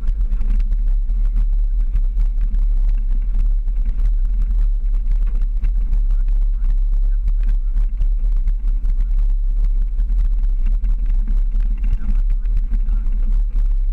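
Jeep driving up a rough dirt and gravel trail, picked up through a hood-mounted camera: a steady heavy low rumble with constant small knocks and rattles from the bumpy road.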